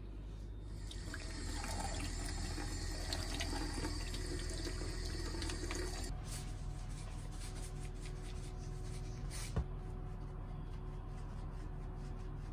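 Tap water running onto raw chicken pieces in a plastic colander in a steel sink as hands rinse them. The water stops about halfway through, followed by small handling clicks and one sharp knock.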